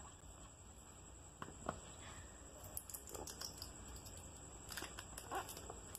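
Faint, scattered taps, clicks and light rustles of a smartphone box and its packaging being handled during an unboxing.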